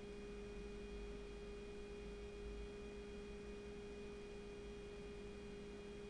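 Faint, steady hum: one constant mid-pitched tone with a weaker lower tone beneath it, over a low hiss, unchanging throughout.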